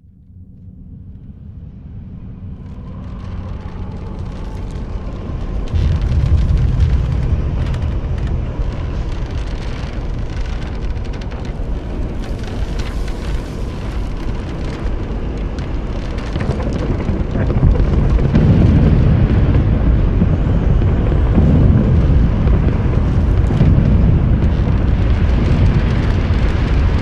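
Volcanic eruption sound effect: a deep rumble with crackling above it, fading in from silence and growing steadily louder.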